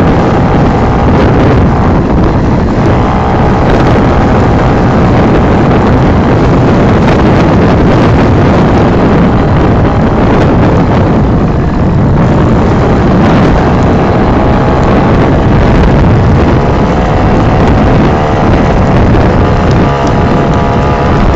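Tomos moped's two-stroke engine running hard while the bike is ridden, the revs rising and falling.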